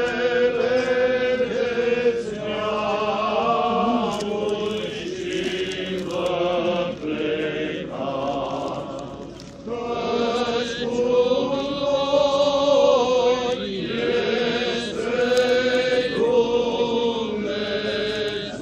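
Eastern Orthodox liturgical chant sung by voices in long held phrases, the melody rising and falling, with a brief break near the middle.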